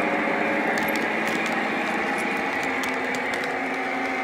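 Electric model train running past close by on its curved track: a steady whining hum of motor and gearing with many light, irregular clicks of wheels on the rails.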